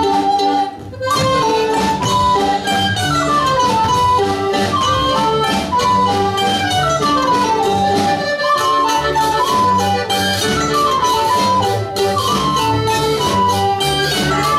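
Live folk-dance band playing a brisk tune on accordion, double bass and plucked strings, with melodic runs over a steady bass line and a brief break about a second in.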